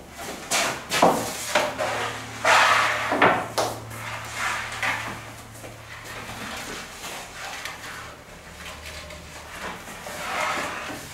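Metal baking trays knocking and scraping as they are slid into a bakery deck oven with a long peel: a run of sharp clatters, most in the first few seconds and a few more near the end, over a low steady hum that stops about two-thirds of the way through.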